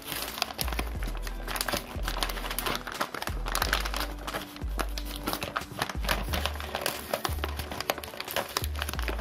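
Crinkling and rustling of a padded paper mailer as it is pulled open and handled, full of quick small crackles. Background music with a bass line plays under it.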